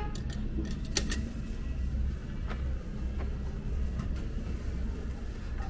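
Light clicks and clatters of a plastic tray and ceramic dishes being handled on a self-service udon counter, over a steady low hum of the restaurant. The sharpest clicks come near the start and about a second in, with fainter ones later.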